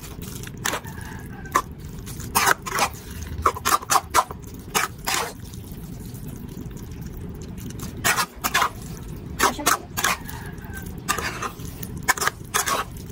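Spoon scraping and knocking against a metal pot as spaghetti is tossed in tomato sauce, with wet squishing of the noodles: irregular strokes, several in quick clusters, over a low steady noise.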